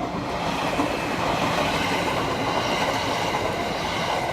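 Train passing through a railway level crossing, a steady loud rush of wheels and carriages on the rails. The crossing's warning bell is faintly heard at first, then drowned out by the train.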